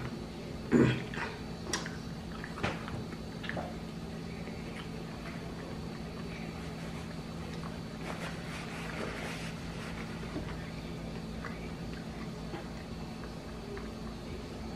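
A person eating rotisserie chicken and rice: a short falling 'mm' about a second in, then soft mouth clicks and smacks of chewing, and a paper napkin rustling around eight to nine seconds, over a steady low hum.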